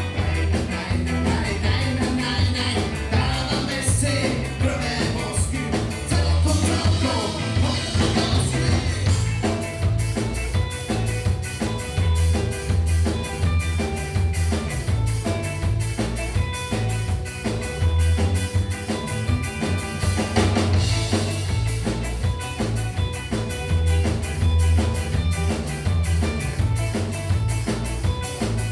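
A live rock band playing: electric guitars, bass guitar and drum kit with a steady beat, with singing over it.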